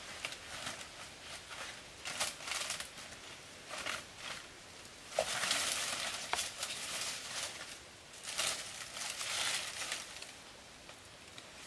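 Rustling and scraping in irregular bursts from bamboo poles being handled and shifted on a lean-to wall, with two sharp clicks about five and six seconds in.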